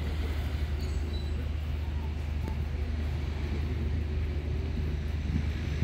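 City street background noise: a steady low rumble with no distinct events.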